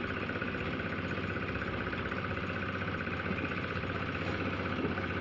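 A motor running steadily at an even speed, with no strikes or changes.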